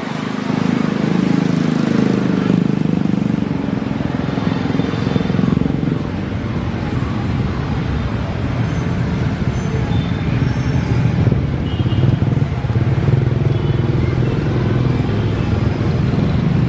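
Motor vehicles passing close by, making a continuous low rumble that is loudest in the first few seconds and deepens in the second half.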